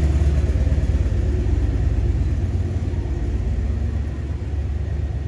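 A steady low engine rumble that eases slightly in level over the last couple of seconds.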